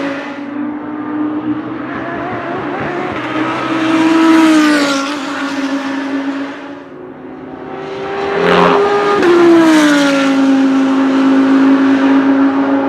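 V10 GT3 race car engines at speed on a track. The engine note rises and then falls twice, about four seconds in and again around nine seconds in, where it is loudest as a car goes by, then holds a steady pitch.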